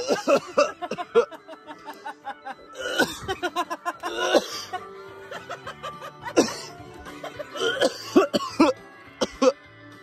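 A man coughing and groaning in irregular bursts after being struck in the groin, over background music.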